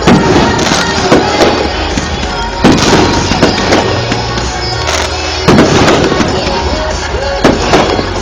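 Fireworks going off, a sharp bang every second or two with each burst trailing away, over music playing.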